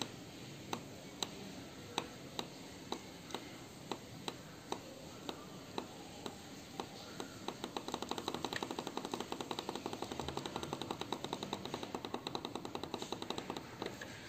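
Small tactile push button clicked over and over, about two presses a second at first, then rapid clicking at roughly ten a second from about halfway in. Each click is a press counted up on a seven-segment LED display through an external interrupt.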